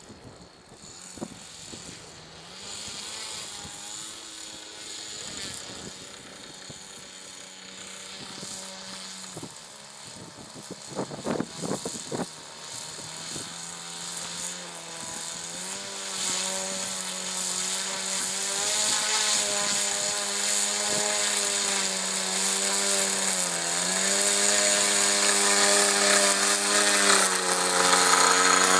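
Radio-controlled model BAe Hawk jet's motor running as it taxis on grass, its pitch stepping up and down several times as the throttle is moved. It grows louder as the model comes close, and there is a short burst of noise about eleven seconds in.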